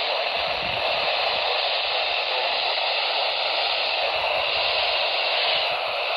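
Steady radio static from a weather radio receiver, the marine warning broadcast lost in hiss on a signal that is only just being received.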